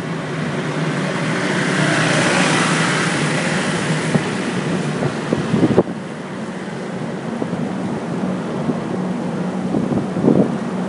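A motor vehicle's engine running steadily under a rushing wind or road noise that swells during the first few seconds. The sound changes abruptly about six seconds in.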